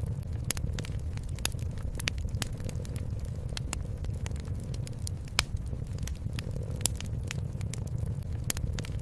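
Wood fire crackling, with irregular sharp pops (the sharpest about five and a half seconds in) over a continuous low rumble.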